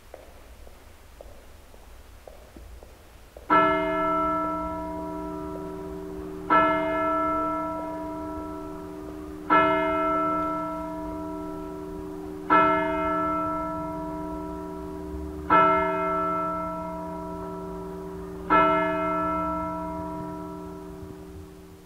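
A church bell struck six times, evenly about three seconds apart, each stroke ringing on and fading before the next.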